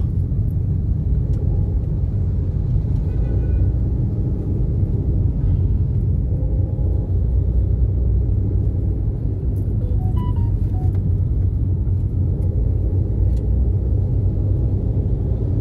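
Car interior road noise: a steady low rumble of engine and tyres heard from inside the cabin of a moving ride-hail car.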